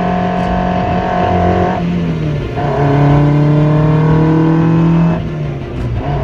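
Honda F20C inline-four with individual throttle bodies in a Toyota AE86 pulling under load, its note held high, then breaking off and coming back lower twice, about two and five seconds in, as gears are changed up.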